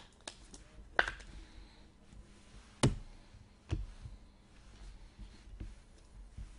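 Football trading cards being shuffled and set down on a tabletop pile: a few sharp taps and clicks, the loudest about one second and about three seconds in.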